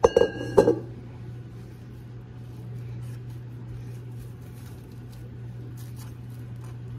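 A stainless steel mixing bowl knocked twice against a tiled counter and ringing briefly. After that, soft rustling and squishing as hands press pie dough into a ball on plastic wrap, over a steady low hum.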